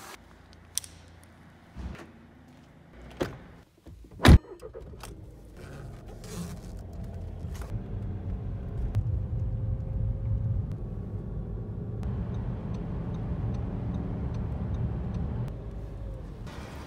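A few sharp clicks and a loud knock about four seconds in. Then a car's engine and road noise are heard from inside the cabin as it drives, a steady low rumble. Near the end there is a light, regular ticking for a few seconds.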